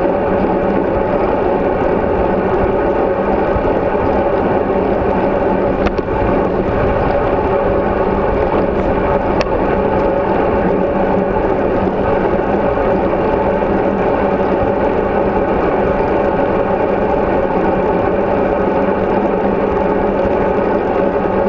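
Steady rush of wind and tyre noise from a moving bicycle, picked up by a handlebar- or helmet-mounted action camera in its housing. There are two faint clicks, about six and nine seconds in.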